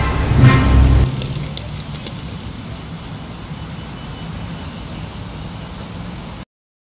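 Music ends about a second in, giving way to steady city street traffic noise, which cuts off abruptly near the end.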